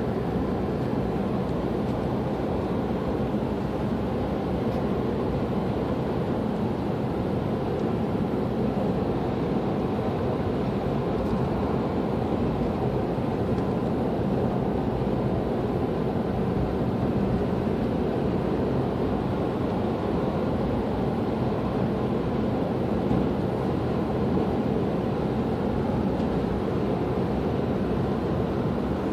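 Steady in-cabin road noise of a car driving at a constant speed on a wet paved road: tyre hiss and engine hum with no change in pitch or level.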